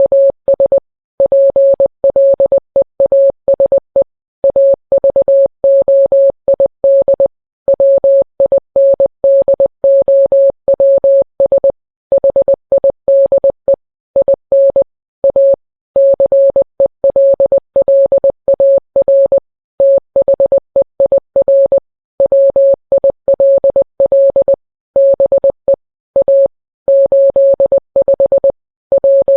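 Morse code: a single steady beep tone keyed on and off in short and long beeps with gaps between letters and words. It spells out a mock emergency alert message.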